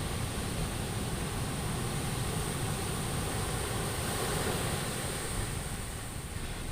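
Sea surf washing onto the beach, a steady rush of noise with a deep rumble underneath.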